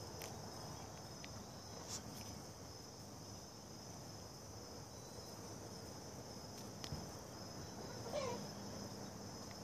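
Faint, steady chorus of crickets. A few soft clicks, and a short rising call about eight seconds in.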